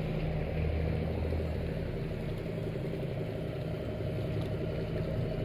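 Large diesel engine of a steel cargo barge running steadily as the barge passes close by, a continuous low drone.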